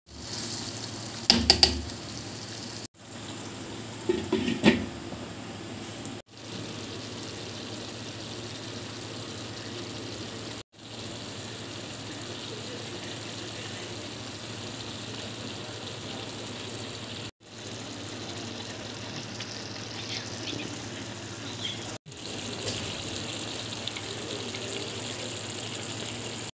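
Palak gosht (spinach and mutton curry) bubbling and sizzling in a cooking pot, a steady noisy hiss. A spatula knocks and scrapes against the pot in two short loud bursts in the first few seconds, and the sound drops out for an instant several times.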